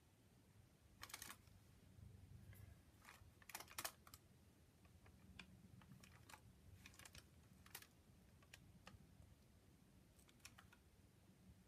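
Near silence with faint, irregular light taps and clicks from a thin paintbrush dabbing white paint dots onto an art-journal page, over a low room hum.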